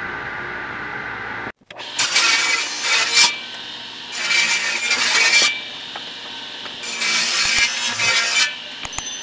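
Delta table saw running, its spinning blade humming steadily. After an abrupt break about a second and a half in, the blade rips a strip of wood in three bursts of about a second each, with a fourth starting near the end.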